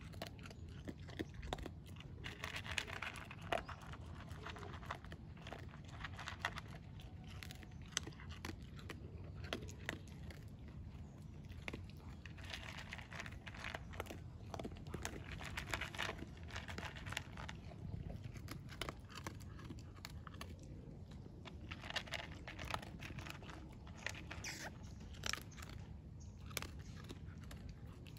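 A dog crunching and chewing dry kibble from a plastic bowl, with irregular crunches and clicks of the pellets.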